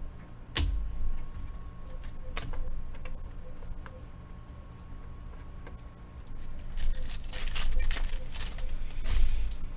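Trading cards and pack wrappers being handled on a table: two sharp clicks within the first three seconds, then a run of crinkling and tapping through the second half.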